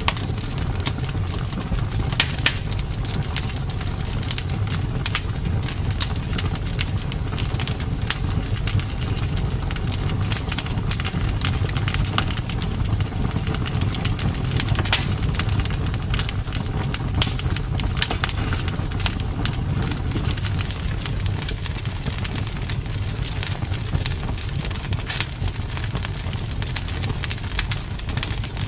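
Wood fire crackling in a fireplace: many sharp pops and snaps, irregular and close together, over a steady low rumble.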